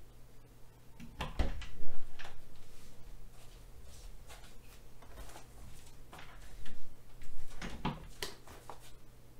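A wooden interior door being opened: the handle and latch click and the door knocks about a second in. A second run of knocks and clicks follows near the end as a person comes in carrying a cardboard parcel.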